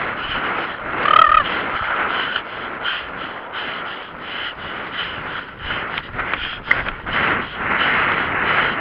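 Horse cantering on a dirt track, heard from the rider's helmet: an even rhythm of hoofbeats and the horse's breathing. About a second in, a brief high-pitched call.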